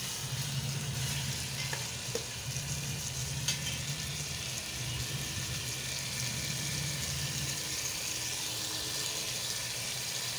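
Chicken curry sizzling steadily as it fries in a stainless steel pot on an induction cooktop turned up high, with a low hum underneath. A few clinks of the steel ladle against the pot in the first few seconds as it is stirred.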